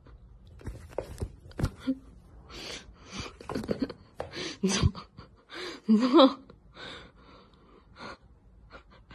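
Cat hissing at a hand in a series of short, breathy bursts, with a louder pitched cry about two-thirds of the way through.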